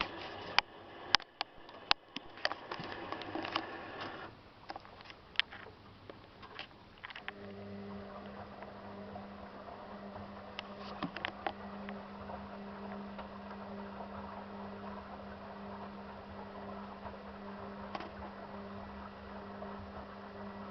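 Zanussi FL984CN washing machine running a wash programme, with irregular clicks and a sloshing noise. About seven seconds in, a steady low hum starts and runs on.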